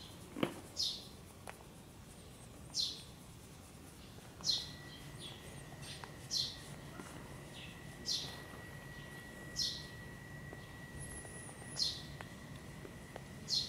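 A bird calling, with short high chirps that slide downward in pitch, repeated about every one to two seconds. A faint steady high whine runs under it from about a third of the way in.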